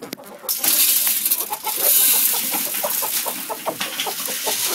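A flock of chickens clucking in many quick, short calls. From about half a second in, a loud steady hiss sits over the clucking.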